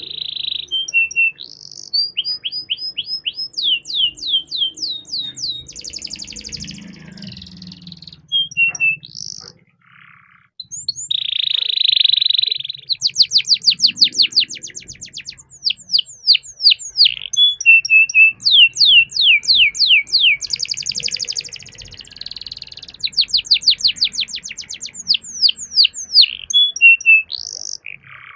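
Domestic canary singing: fast trills of quickly repeated downward-sweeping notes alternating with buzzy rolls, with a short pause about ten seconds in.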